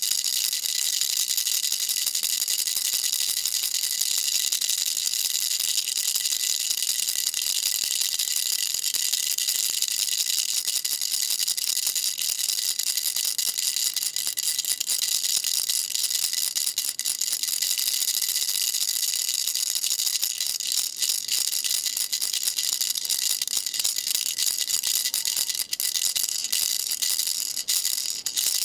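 Baby rattle shaken continuously, a dense high-pitched rattling of small beads, breaking into separate clicks near the end.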